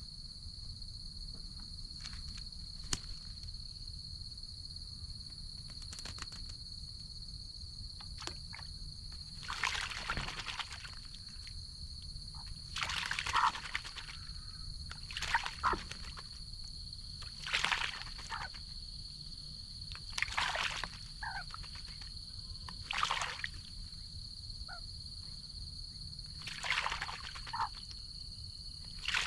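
Australian magpie bathing in a birdbath: a series of about seven short splashes in the water, spaced a few seconds apart.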